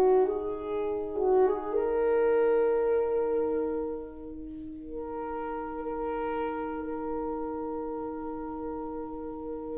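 Saxophone quartet playing slow sustained chords. The voices shift during the first two seconds, then settle into a long held chord that turns softer about four seconds in.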